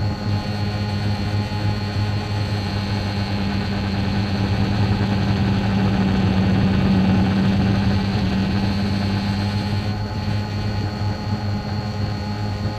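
DJI Phantom 2 quadcopter's four motors and propellers humming steadily in flight, picked up by its onboard camera. The hum swells in the middle as the drone climbs.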